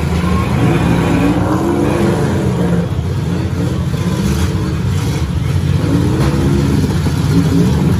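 Several demolition derby cars' engines revving together as the cars push and ram one another, the pitch rising and falling over a dense, continuous engine noise.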